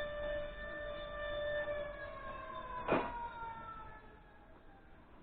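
Siren sound effect played by a model railway layout's sound module: a steady siren tone that winds down in pitch and fades out, with a single click about three seconds in.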